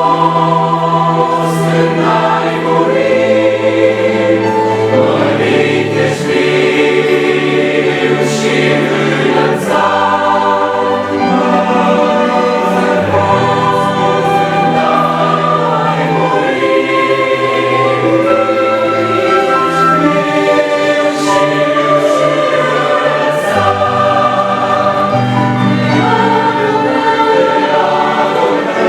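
Choir singing a Christian worship song with instrumental accompaniment and a sustained bass line.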